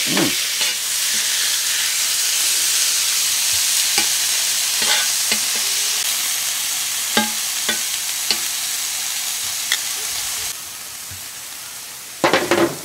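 Strips of raw beef sizzling on a hot steel griddle plate, with metal tongs clicking and scraping on the steel as they spread the meat out. The sizzle quietens abruptly near the end.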